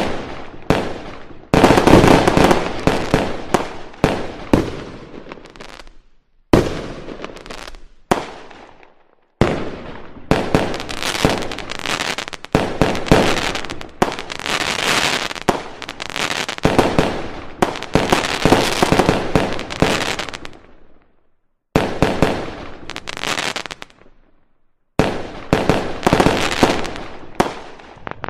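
Aerial fireworks shells bursting one after another, each sharp bang trailing off in crackle. The sound cuts off abruptly a few times into short stretches of silence.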